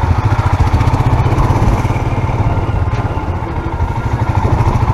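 Motorcycle engine running as the bike rides along at low speed, a steady low pulsing note.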